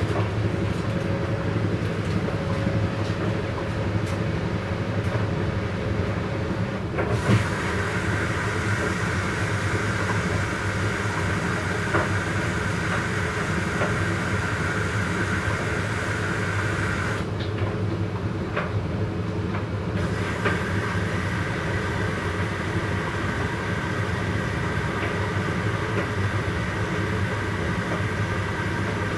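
Two washer-dryers, a Hoover and a Candy, running at the start of their wash cycles with a steady mechanical hum. A higher whirring joins about seven seconds in, cuts out briefly near the middle, then comes back, with a few light clicks.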